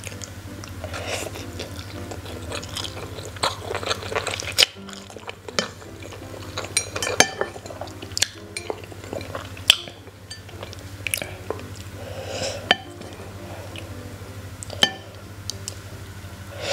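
Wooden chopsticks and a wooden spoon clicking and scraping against a ceramic bowl of fried noodles, sharp clicks every second or so, with chewing in between.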